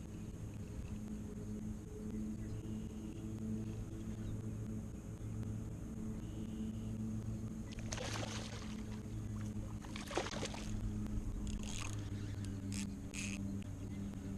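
A boat engine drones steadily at a low pitch. A few short splashes of water break in about eight and ten seconds in, followed by a few sharp clicks near the end.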